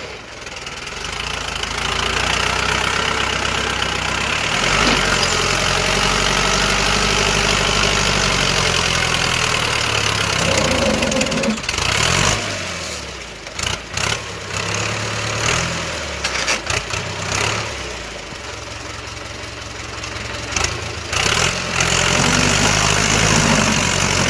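A motor vehicle's engine running, its pitch rising and falling as the revs change, with a few sharp knocks about halfway through.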